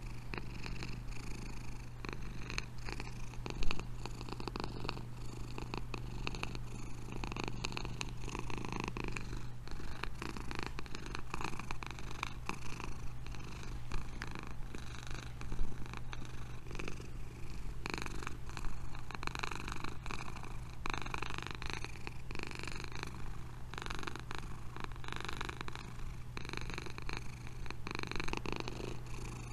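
Domestic cat purring steadily and close to the microphone, with a couple of brief louder knocks, about four and sixteen seconds in.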